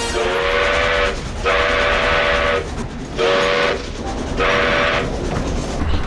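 Steam locomotive chime whistle sounding four blasts, each a chord of several notes at once: two long blasts of about a second each, then two short ones. A steady low rumble from the running train lies underneath.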